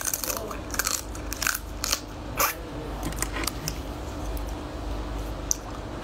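Crab shell cracking and crunching as it is bitten and broken apart, a string of sharp cracks and crackles, thickest in the first couple of seconds, then sparser with one more sharp crack near the end.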